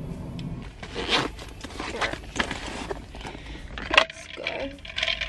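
Handling noise: fabric rustling and scraping from a jacket and bag being moved about on a car seat, with a sharp click about four seconds in.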